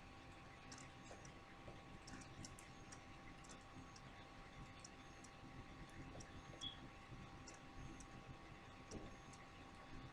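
Near silence: room tone with a faint steady hum and scattered faint clicks.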